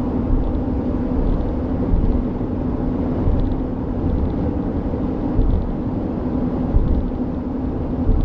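Steady road and engine noise inside a car driving at speed, with a constant low hum.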